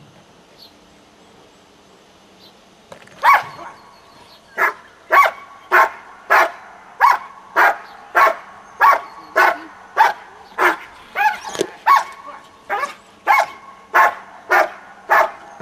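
A 20-month-old dog barking steadily and hard at a protection-training helper, about two barks a second, starting about three seconds in: a bark-and-hold, the dog guarding the helper at the blind without biting.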